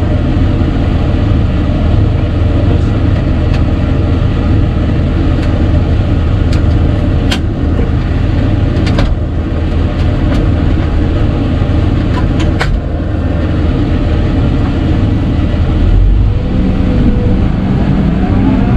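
Hidromek 220 LC excavator's diesel engine running steadily, heard from inside the cab, with several sharp clicks and knocks in the middle and a wavering whine near the end as the machine works.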